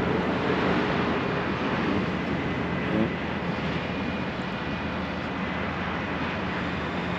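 Heavy tow truck's diesel engine running steadily, with a single brief clunk about three seconds in.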